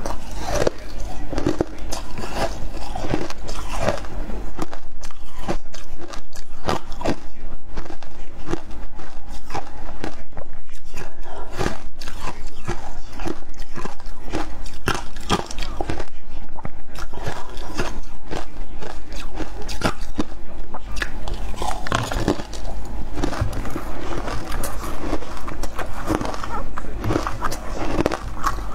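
Shaved ice being crunched and chewed close to the microphones, a dense, continuous run of sharp crunches.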